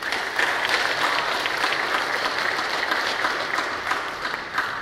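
Audience applauding, dense and even, starting at once and easing off near the end.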